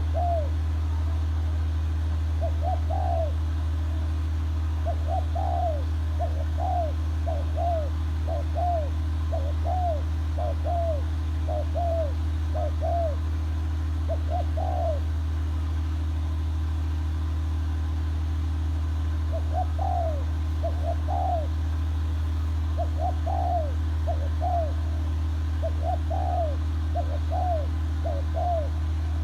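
A bird calling over and over in short, arched cooing notes, about one or two a second, with a pause of a few seconds in the middle. A steady low hum runs underneath throughout.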